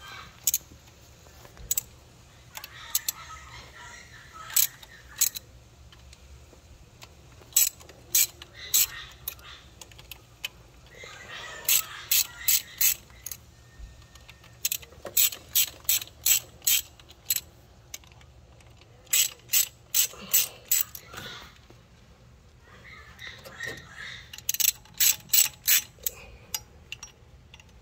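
Hand ratchet wrench clicking in short runs of quick clicks with pauses between them, as the two screws holding a BMW B48's high-pressure fuel pump are loosened evenly.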